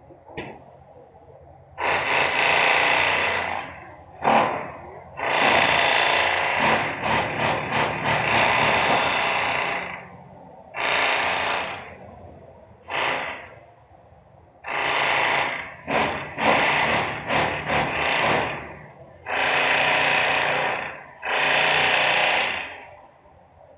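Loud industrial machinery noise, like power tools, coming in about eight bursts of one to five seconds with short quieter gaps between them: the excessive noise from the industrial site.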